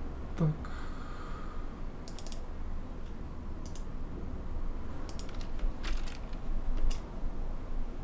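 Computer mouse clicks: a few scattered sharp clicks, some in quick double-click pairs, over a steady low hum.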